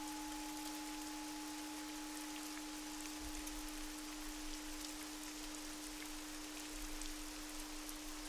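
Steady rain patter with scattered drops under a sustained low tone, while a higher singing-bowl ring near 852 Hz slowly fades away over the first half.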